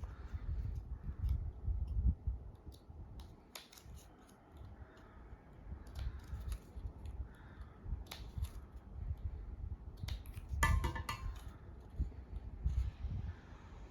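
Close-up handling of small art-paper craft pieces: scattered clicks and short rustles of paper, with irregular low bumps.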